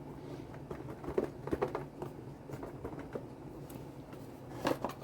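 Light clicks, taps and rustles of hands handling a model locomotive's cardboard box and packaging, with a louder couple of knocks near the end, over a faint steady hum.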